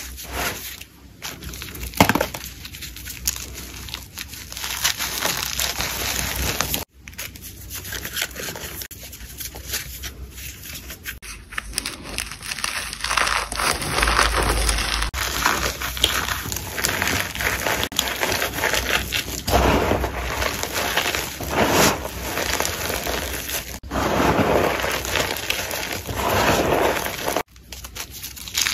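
Gym chalk crushed and crumbled by hand: blocks broken apart and soft powdery chunks crunching between the fingers, irregularly.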